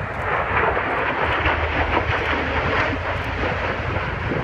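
Aircraft flying over, a steady engine noise with a low rumble underneath.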